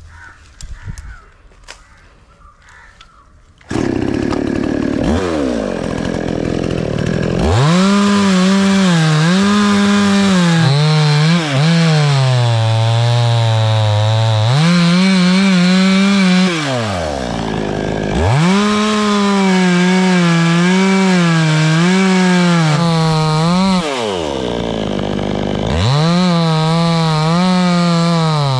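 Two-stroke chainsaw coming in loud about four seconds in and cutting wood at full throttle, its pitch sagging each time the chain bites under load. It drops back to idle twice between cuts and revs up again.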